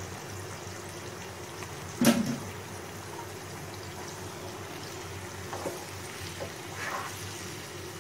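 Hot jaggery syrup simmering in a frying pan with freshly boiled rice, a slotted metal spoon stirring it in; a sharp metal clack against the pan about two seconds in.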